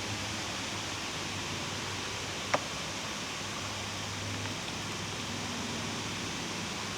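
Steady wind hiss in the forest, with a single short sharp click about two and a half seconds in.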